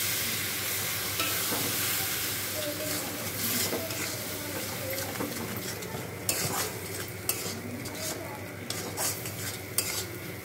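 Spice paste of onion, garlic and ginger with turmeric and chilli powder sizzling in hot oil in a kadai while a metal spatula stirs and scrapes it, frying the masala down. The sizzle is strongest in the first couple of seconds, with scattered clicks of the spatula against the pan.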